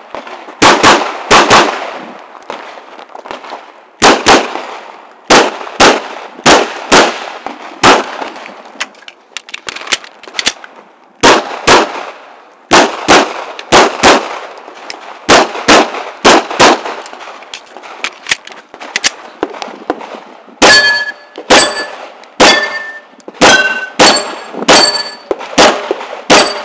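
Semi-automatic pistol fired in quick pairs of shots, group after group with short pauses between, during a USPSA stage run. From about 20 seconds in, many of the shots are followed by a short metallic ring, the sound of bullets hitting steel targets.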